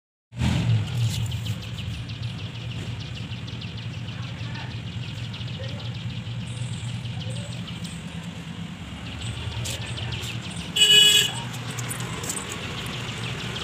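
A motor vehicle's engine running steadily, with one short horn toot about eleven seconds in, the loudest sound.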